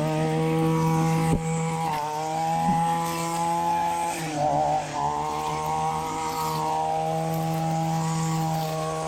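String trimmer's small petrol engine running at high revs, with a brief throttle dip and pick-up about four to five seconds in.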